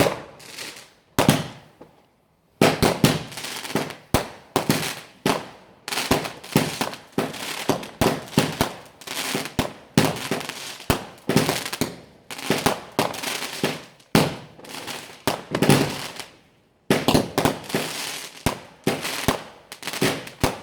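Fireworks going off: a few separate bangs, then from about two and a half seconds in a rapid, almost unbroken string of sharp cracks and bangs, with one brief pause near the end.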